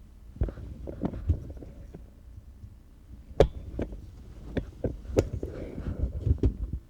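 Irregular knocks, clicks and thumps of objects being handled and set down, about a dozen of them, the sharpest a little past halfway.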